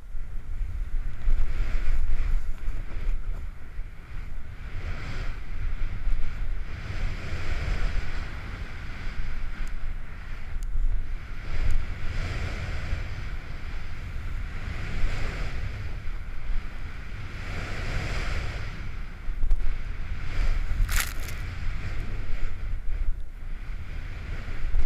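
A splitboard carving through powder snow: a spraying hiss that swells and fades with each turn every few seconds, over a steady rumble of wind on the microphone. A brief sharp, high sound cuts in once near the end.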